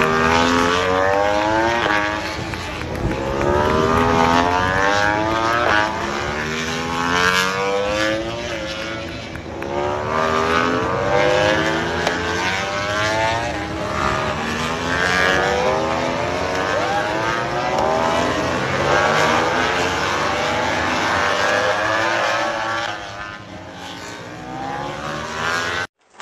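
MotoGP bikes' four-cylinder racing engines at full throttle, the pitch climbing steeply through each gear and dropping back at every upshift, again and again as the bikes accelerate past. The sound eases near the end and then cuts off suddenly.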